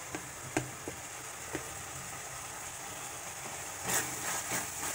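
Bitter gourd gojju sizzling steadily in the pan, with a few light clicks of a metal spoon, then a louder scrape of the spoon against the pan about four seconds in as stirring begins.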